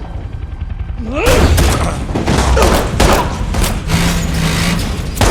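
Action-film fight sound effects: a rapid string of loud bangs and thuds with shouting, starting about a second in.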